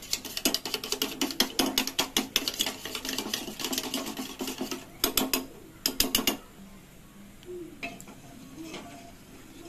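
A fork beating a raw egg in a small stainless steel bowl: quick, rhythmic clinks of the metal tines against the bowl, about four a second, stopping about six and a half seconds in.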